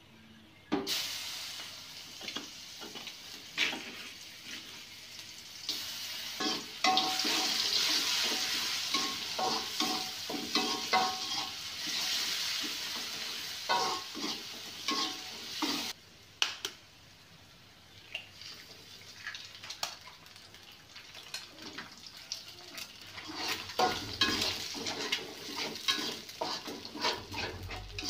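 A metal spatula scraping and tapping in a wok while food fries and sizzles in hot oil. The sizzle starts suddenly about a second in and is loudest in the first half. It drops away abruptly past the middle, leaving mostly scrapes and taps that grow busier again near the end.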